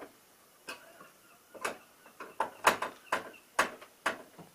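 Phillips screwdriver tightening a bolt through a steel TV-mount bracket arm into the back of a TV: a series of short, sharp clicks, about two a second, as the bolt is driven home.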